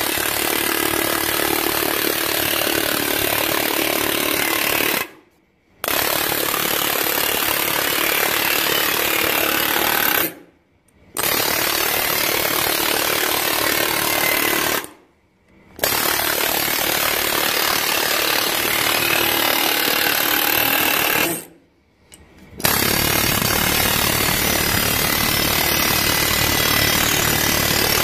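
Pneumatic multi-impact hammer gun rapidly hammering a sheet-metal edge, laying it over little by little to stretch it into a flange. It runs in long stretches, with four brief stops.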